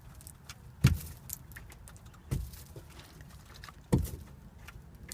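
Three dull knocks about a second and a half apart, with lighter clicks between them.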